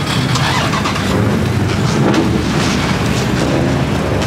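Toyota AE86 Corolla driving slowly past at close range and pulling away, its engine and exhaust giving a loud, steady deep rumble.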